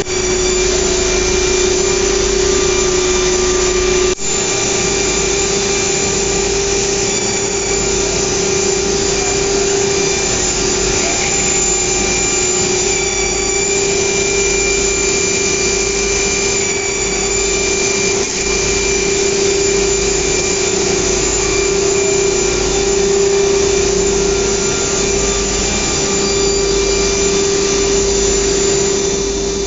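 Automatic-loading CNC nesting router running with its dust-collector blower: a loud, steady machine drone carrying one constant hum. A sharp click about four seconds in, after which the hum steps slightly higher.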